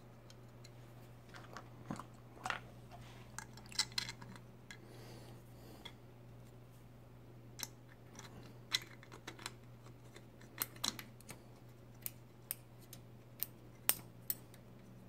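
Irregular light clicks and scrapes of an Allen wrench working a screw into a 3D-printed plastic primer catcher on a metal reloading press. The clicks come in a cluster a couple of seconds in, then more spread out through the second half, over a low steady hum.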